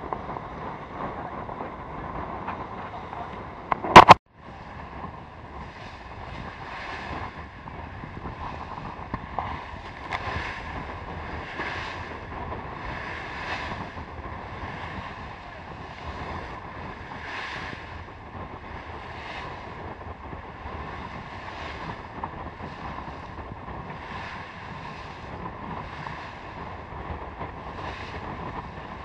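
Wind buffeting the microphone and water rushing along the hull of a sailing yacht under way and heeled, with one sharp, very loud knock about four seconds in. After the knock, surges of spray come about every one and a half to two seconds.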